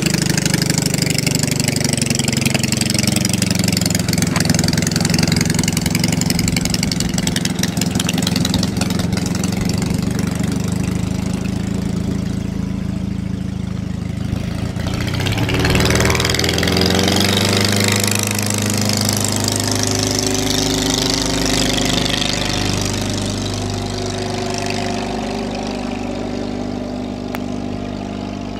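Half-VW two-cylinder engine of a Legal Eagle ultralight running as the aircraft taxis, its pitch sinking over the first few seconds. About halfway through, the engine opens up to full power for the takeoff, and it runs steadily as the plane climbs away, slowly growing fainter.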